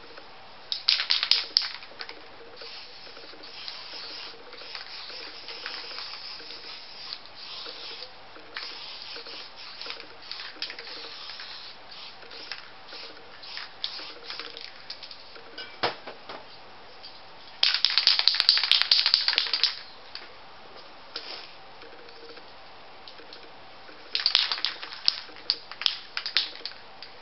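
Aerosol spray paint can spraying in repeated bursts of hiss, the longest and loudest lasting about two seconds about two-thirds of the way through, with a run of short bursts near the end.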